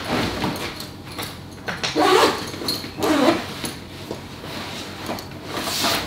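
A fabric backpack being handled and set down, with rustling, small knocks and two louder scuffs about two and three seconds in.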